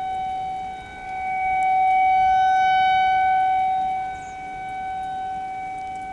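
Federal Signal 2001-130 outdoor warning siren sounding a steady alert tone for a severe thunderstorm warning. The single held tone swells to its loudest about a second in and falls back about four seconds in as the rotating horn sweeps toward and away.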